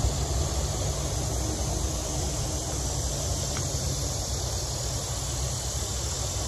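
Steady outdoor background noise: a low rumble with an even hiss over it and no distinct event.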